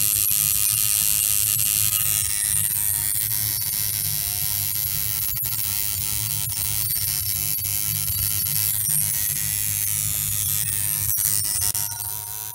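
Electric tattoo machine buzzing steadily as it works colour into skin, a low even hum with a hiss above it. The buzz drops away near the end.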